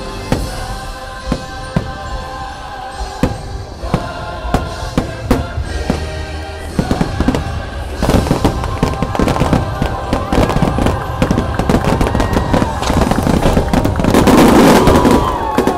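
Fireworks finale: rapid bangs and crackle of aerial shells over the show's music. It thickens after about eight seconds into a dense, loud barrage near the end.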